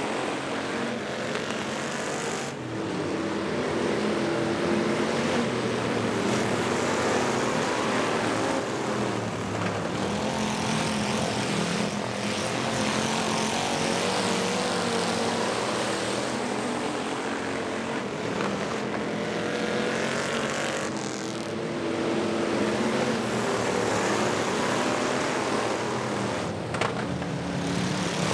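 Several cruiser-class dirt-track stock cars racing together, their engines overlapping in a steady drone whose pitch shifts as the cars accelerate and back off.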